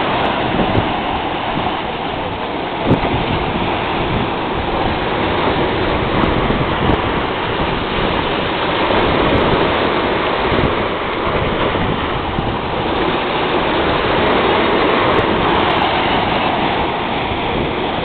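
Mediterranean sea waves breaking over shoreline rocks and washing through the gaps between them: a steady rush of surf that swells and eases gently.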